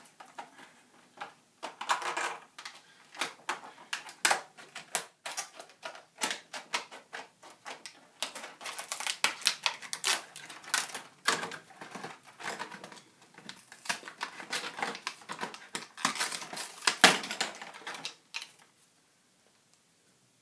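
Rapid, irregular plastic clicking and rattling as a Buzz Bee Panther toy dart blaster is handled. The clicks come thickest through the middle and again near the end, the loudest just before they stop, about two seconds before the end.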